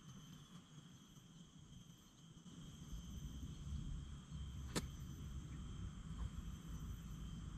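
A golf club striking the ball in a full swing: one sharp click a little under five seconds in. Behind it, insects drone steadily at a high pitch and a low rumble comes in partway through.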